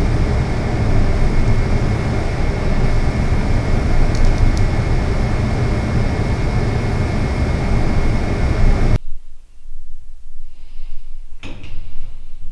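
Steady rushing air noise of a paint spray booth in use while cabinet doors are spray-painted with a hose-fed spray gun, with a faint steady whine running through it. It cuts off abruptly about nine seconds in, and a couple of light knocks follow.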